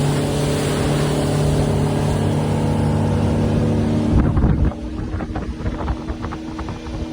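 Speedboat engine running under a loud rushing of water and wind. About four seconds in come a few heavy thumps, then the rushing drops away while the engine keeps running.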